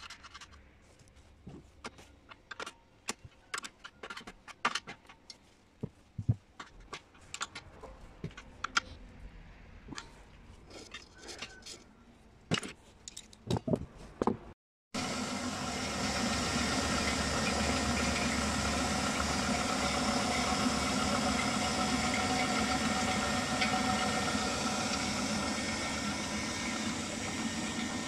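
Scattered sharp metal clicks and knocks of hand tools and hammer taps while an electric motor is fitted to a steel frame. Then, about halfway through, a belt-driven electric motor turning a chicken-plucker drum starts up loud and runs with a steady hum.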